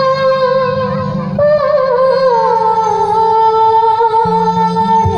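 A woman singing into a microphone through a stage PA, holding long notes that waver and slide down about two seconds in, then settle on a lower held note over a steady low instrumental accompaniment.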